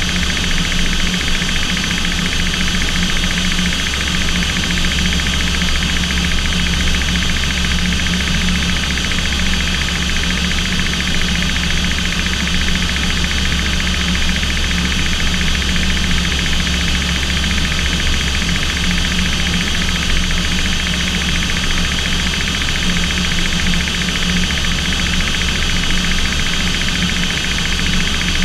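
Steady drone of an aircraft's engines heard from inside the cockpit: a constant low hum with several steady higher tones over it, unchanging throughout.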